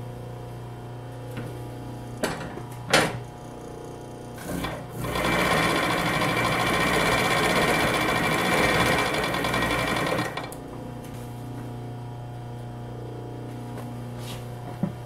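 US Blind Stitch 118-1 industrial blind-stitch machine sewing through thick denim in one steady run of about five seconds, then stopping, over the steady hum of its motor. A couple of sharp clicks come a few seconds before the run starts.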